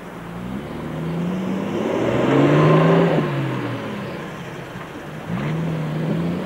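Engine of a 4x4 off-road vehicle revving hard as it climbs a steep grassy slope. The revs rise to a peak about two and a half seconds in, drop off sharply just after three seconds, then rise again near the end.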